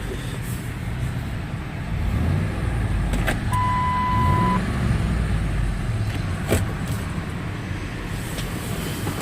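Car engine running with a steady low rumble. A single electronic beep about a second long sounds near the middle, and a couple of sharp clicks come through.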